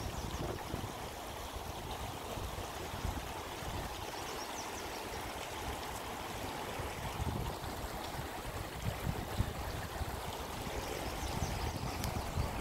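Shallow rocky creek flowing over stones, a steady rushing water sound, with irregular low rumbles of wind on the microphone.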